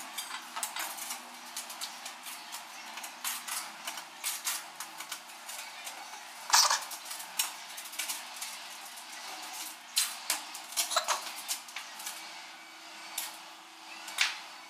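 A mason's trowel scraping and clinking against a ceramic tile and a mortar bowl while mortar is spread for wall tiling: a string of irregular scrapes and taps, with a sharp clink about six and a half seconds in.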